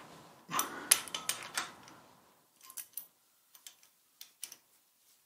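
Spanner clicking and clinking against the bolts of a milling machine's nodding head as they are loosened: a quick run of sharp metallic clicks and knocks in the first two seconds, then scattered faint ticks.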